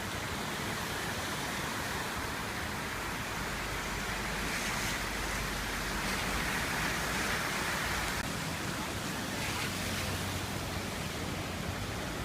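Floodwater rushing in a swollen stream running over its banks: a steady wash of water noise, a little louder in the middle.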